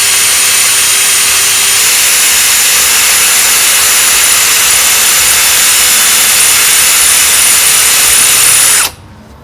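Devon 20 V cordless drill running steadily with an 8 mm Heller tile-and-glass bit grinding into wet glass. Its whine steps up a little about two seconds in, and the drill stops abruptly near the end.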